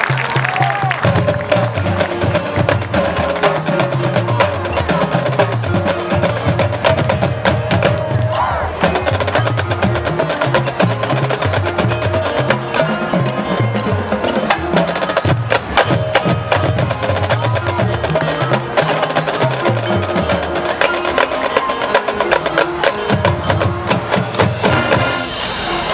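High school marching band playing a field-show number, with the percussion to the fore: drums and the front ensemble's mallet instruments keep a busy, clicking rhythm over a moving bass line.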